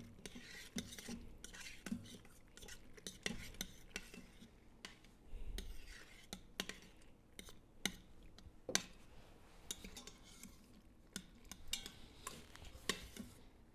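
Metal spoon stirring pasta shells and butter in an Instant Pot's stainless steel inner pot, clinking and scraping against the pot at irregular moments, with a soft low thump about five seconds in.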